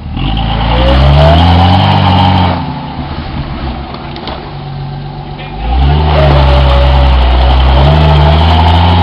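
1987 AMC Jeep Cherokee's engine revving hard twice as it tries to climb a slick mud hill, its pitch climbing on each surge, with a quieter lull of about three seconds between. The surges come with wheelspin, the Jeep not getting enough traction to make the climb.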